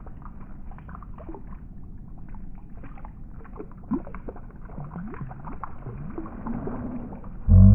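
Muffled rustling and light clicks of a mesh hand net full of wet pond plants being handled. Near the end, a much louder held sound with several steady pitches starts abruptly.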